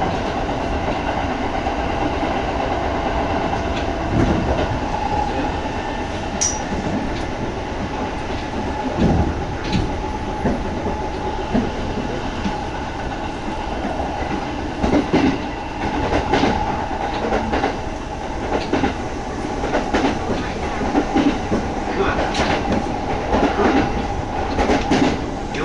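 Kintetsu 1200-series electric train running at speed, heard from inside the passenger car: a steady rumble of wheels on rail with repeated clicks over rail joints, which come more often in the second half.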